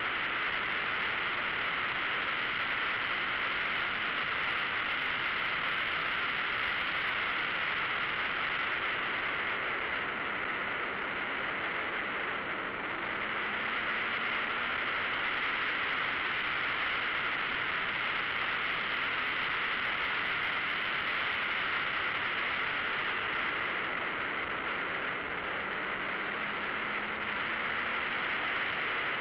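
Steady rush of wind and road noise on a turbocharged car at track speed, with the engine faintly underneath. The engine rises in pitch twice, once about midway and once near the end, as it pulls through the gears.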